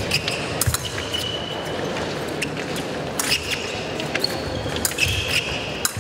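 Fencers' shoes squeaking on the piste during an épée bout, several short squeaks of about half a second each, with scattered sharp taps and knocks of footwork and blades.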